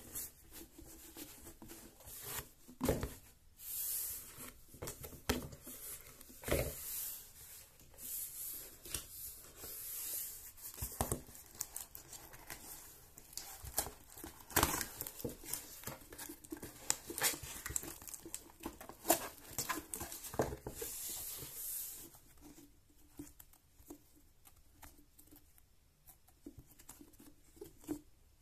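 Thin cardboard box opened by hand: flaps pulled back and card tabs tearing and scraping, with irregular clicks and papery rustles. About 22 seconds in it gives way to softer handling sounds.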